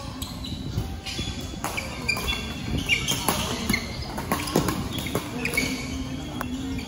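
Badminton rally on an indoor court: rackets hitting the shuttlecock every second or so, with court shoes squeaking in short chirps on the floor.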